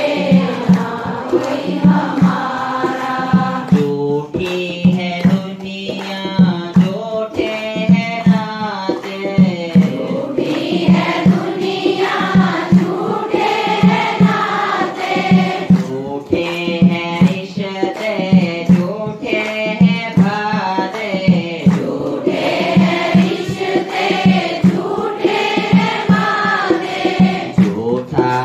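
Hindu devotional aarti sung with musical accompaniment over a steady percussion beat.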